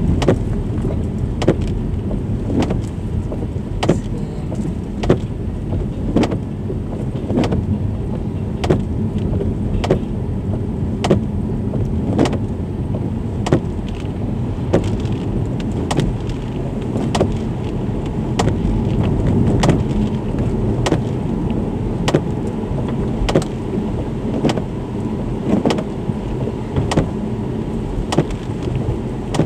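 Subaru Legacy driving on a wet road, heard from inside the cabin: a steady rumble of engine and tyres, with a sharp click repeating evenly about once every second and a bit.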